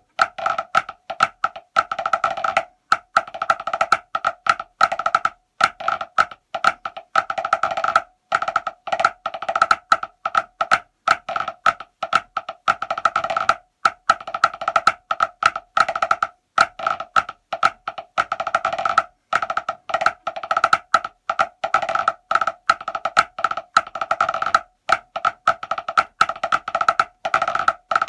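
Drumsticks on a rubber drum practice pad playing a pipe band snare drum solo in 2/4 hornpipe time: fast rolls and rudiment strokes, with a few short breaks between phrases.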